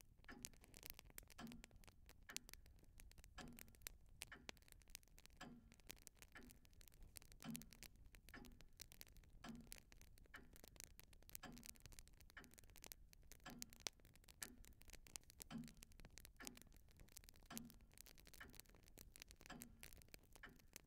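Faint steady ticking of a clock, about one tick a second, every other tick stronger, over a fine continuous crackle.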